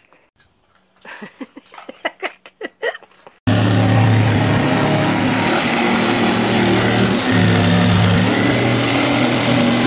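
After a few quiet seconds with faint scattered clicks, a Black & Decker jigsaw starts abruptly and runs steadily, its blade cutting a circle out of a plastic barrel lid, with one brief dip about seven seconds in.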